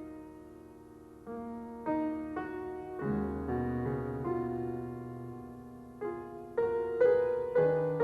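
Slow background piano music: single notes and chords struck and left to ring, growing louder near the end.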